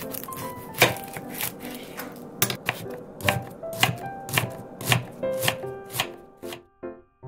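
Chef's knife slicing a red onion on a cutting board: a series of crisp knife strikes against the board, roughly two a second, stopping shortly before the end.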